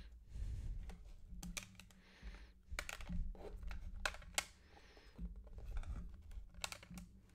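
Hard plastic card cases and graded card slabs clicking and clacking against each other as they are picked up and stacked in the hand, a scattered series of light clicks.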